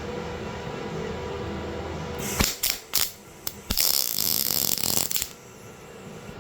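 MIG welder arc crackling on a cracked stainless steel exhaust pipe fed with mild steel wire: a few short stuttering bursts about two seconds in, then a steady run of about a second and a half that cuts off. A low steady hum lies under it.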